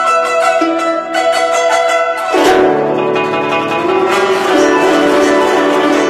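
Guzheng being played: rapid repeated plucked notes, then about two seconds in a sweep across the strings leads into lower, ringing notes.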